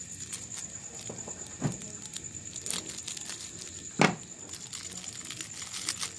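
Plastic bait packet crinkling and being handled while its powder is shaken into a plastic bowl, with a scatter of small clicks and two heavier knocks, about a second and a half in and about four seconds in.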